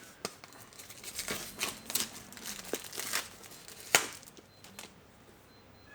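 Phone box being unboxed: packaging crinkling and rustling, with a few sharp clicks and knocks, the loudest about four seconds in.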